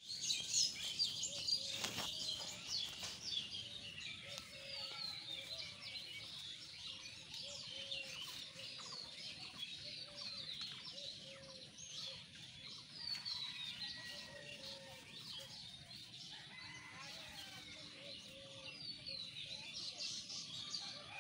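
A crowd of small birds chirping and twittering continuously in the tree, with many quick, sweeping high notes and a lower call repeated underneath. A single sharp click sounds about two seconds in.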